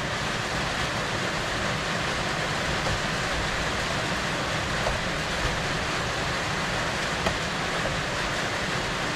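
Steady background hiss with a few faint, light clicks, about five, five and a half and seven seconds in.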